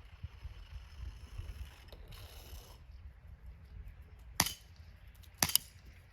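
Two shots from a Colt M45 CQBP CO2 BB pistol, a little over a second apart, near the end.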